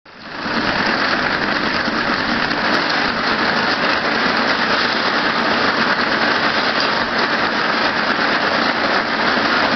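A YH-U-36-1 wire braiding machine for flexible natural-gas hose running steadily, a dense even mechanical noise that fades in over the first half second.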